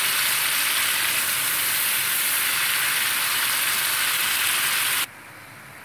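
Ground tomato paste with garlic and ginger sizzling as it fries in oil in a pan; a steady hiss that cuts off abruptly about five seconds in. The oil is separating from the tomato, the sign that the paste is nearly cooked.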